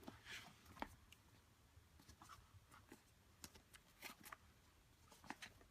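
Faint, scattered clicks and rustles of a smartphone's cardboard retail box being handled and turned over.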